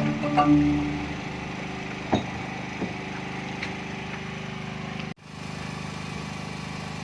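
Boat engine running steadily at low revs, with a few light clicks. Tinkling mallet-percussion music fades out in the first second, and the sound cuts out for an instant about five seconds in before the engine hum resumes.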